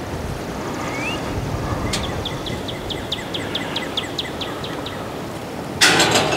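A songbird trilling in the background: a run of quick, evenly spaced high chirps, about five a second for nearly three seconds, over steady low background noise. A short burst of rustling noise, the loudest thing here, comes near the end.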